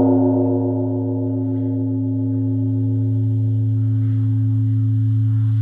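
Large Korean Buddhist temple bronze bell (beomjong) ringing on after a strike: a deep, steady hum with a second tone above it, while the higher overtones fade away over the first couple of seconds.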